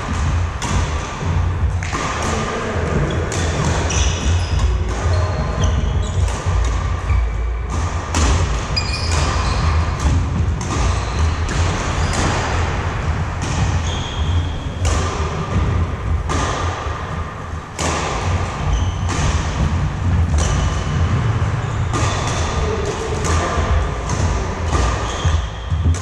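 A badminton rally on a wooden indoor court. Rackets strike the shuttlecock sharply about once a second, amid squeaking shoes and footfalls, all echoing in a large hall over a steady low rumble.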